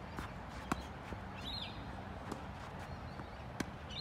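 Tennis ball struck by racquets and bouncing on the court during a rally: a series of sharp pops, the loudest about a second in and another near the end. A bird chirps once in the middle.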